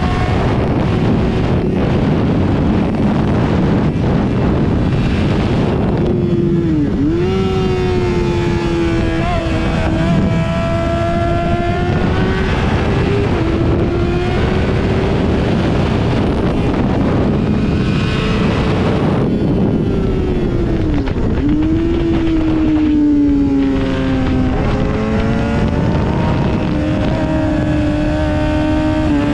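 Yamaha sportbike engine running hard on a racetrack under heavy wind rush over the microphone. Its note drops sharply and climbs back twice, about seven and about twenty-one seconds in, as the bike slows for corners and accelerates out again.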